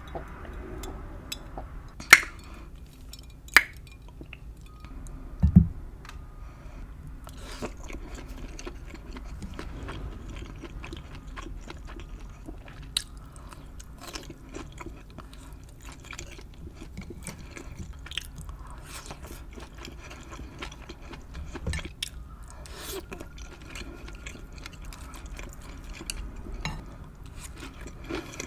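Close-miked chewing of chicken apple sausage and tortellini: soft, wet mouth clicks and smacks throughout. Two sharp clicks come about two and three and a half seconds in, and a low thump shortly after five seconds.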